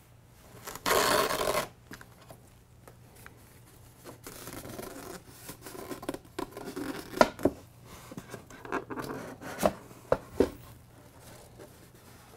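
A strap pulled open with a short rip about a second in, then a styrofoam packing shell scraping and rubbing, with several sharp creaks, as it is worked up and lifted off.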